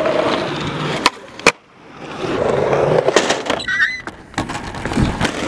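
Skateboard wheels rolling on concrete, with a sharp clack about a second and a half in. The rolling builds again, followed by a run of quick clicks and a low rumble as the board rides the ramp.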